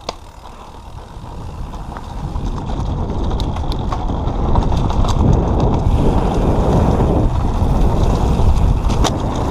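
Downhill mountain bike running down a dirt trail. Tyre rumble and wind on the microphone build over the first few seconds to a loud, steady rush, with scattered sharp clicks and rattles from the bike.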